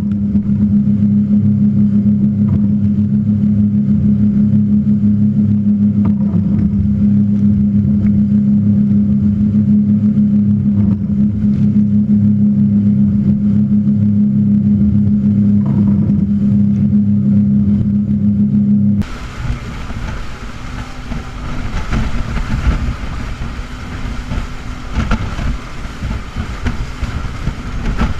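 A speed boat's engines running flat out, a steady, unchanging drone. About two-thirds of the way in the sound changes abruptly to a quieter, rougher rush of wind and water over the engine.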